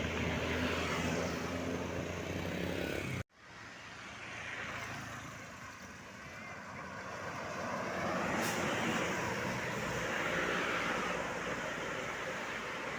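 A large vehicle's engine running steadily, then an abrupt break about three seconds in. After the break, road traffic passing by, its rush of engines and tyres swelling and fading.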